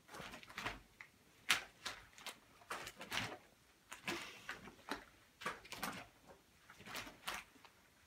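Rubber exercise band swishing and flapping as it is swung back and forth, a string of short faint swishes about twice a second.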